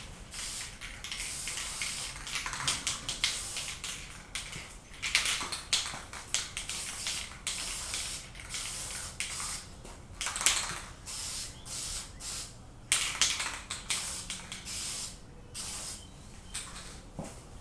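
Aerosol can of Krylon camouflage khaki spray paint hissing in a series of short and longer bursts as the base coat is touched up over spots that were missed.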